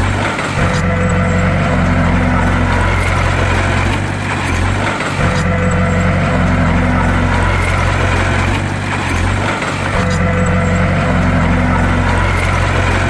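Bulldozer's diesel engine running steadily, its note dipping briefly in a repeating pattern about every four and a half seconds.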